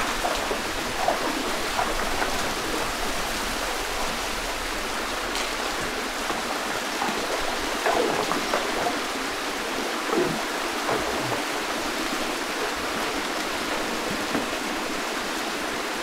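Small waterfall pouring into a shallow rock pool: a steady rush of falling water, with a few brief louder splashes from people standing under the stream.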